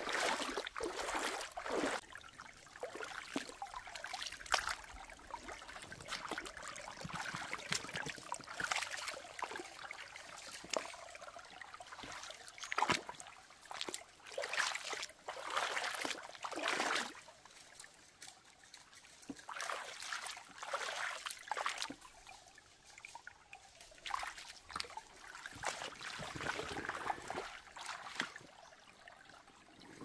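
Small spring-fed stream trickling over pebbles and leaves in shallow water, its sound swelling and fading unevenly.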